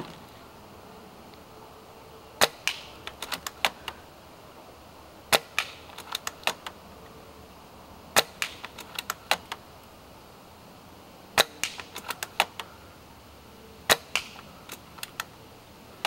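WELL MB03 spring-powered airsoft sniper rifle firing five times, about every three seconds. Each sharp crack is followed by a short rattle of clicks as the bolt is worked to cock it for the next shot.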